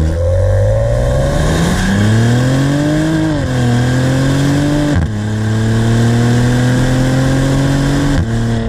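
Twin-turbo 3.0-litre V6 of a 2019 Maserati Levante GranSport under hard acceleration, heard close to the exhaust: the revs climb, dip at gear changes about three and five seconds in, climb again, and drop near the end.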